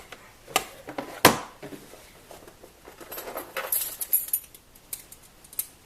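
Keys jangling on a key ring, with two sharp clicks about a second in and bursts of high jingling in the second half.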